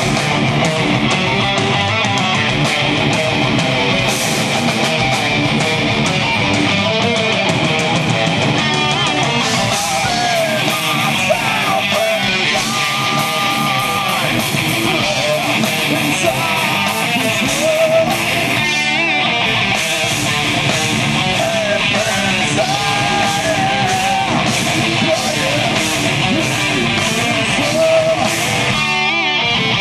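Live metal band playing loud and steady: electric guitar and bass guitar over drums.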